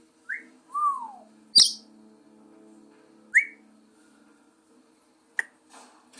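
African grey parrot whistling and chirping: a short rising whistle, then a falling whistle, then a sharp loud chirp, with another rising whistle about halfway through and a brief chirp near the end.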